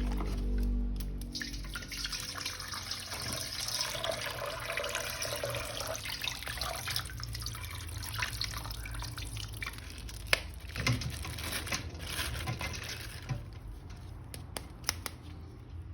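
Water running and splashing as a plastic action figure is washed, with scattered small clicks and knocks.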